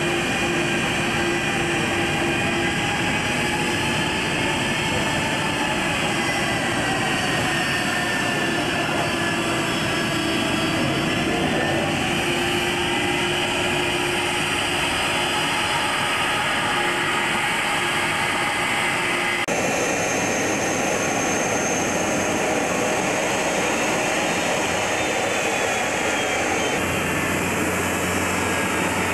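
Turbofan engines of an Airbus A310-300 airliner running at idle on the apron as it is parked: a steady jet roar with whining tones that slide slowly in pitch. The sound changes abruptly about two-thirds of the way through.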